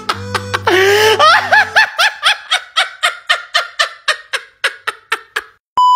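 A high-pitched snickering laugh in rapid, evenly spaced bursts, about five a second, that trail off over about four seconds. Near the end a steady electronic beep starts.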